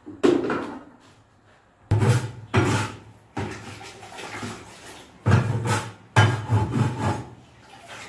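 Tile mortar being worked in a plastic bucket: a series of about six rough scraping strokes, each starting suddenly.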